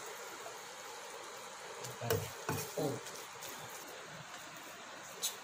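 Spatula scraping and knocking against a non-stick frying pan as fried chicken is scooped out, a few strokes about two to three seconds in, over a faint steady hiss.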